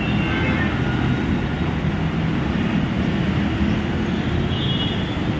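Heavy city road traffic: the steady, dense rumble of car, motorbike and bus engines and tyres passing close by, with a faint high-pitched tone near the end.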